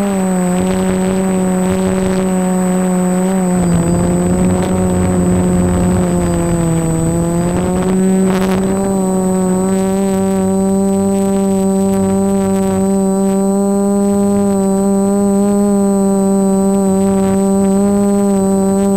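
DJI Flamewheel F330 quadcopter's brushless motors and propellers humming steadily in flight, one pitched drone with many overtones. The pitch sags a little a few seconds in, then rises and holds, with a rush of air noise over it during the first half.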